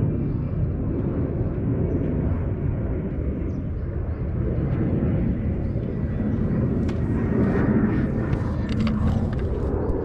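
Steady low wind rumble on the microphone of a camera set on a sandy dirt trail. Footsteps crunching on the sandy path come up close from about seven to nine seconds in.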